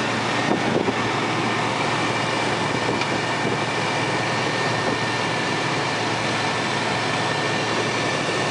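Chevy 4.3-litre V6 idling steadily while it warms up toward operating temperature after an intake manifold gasket repair, with a thin steady whine over the engine noise.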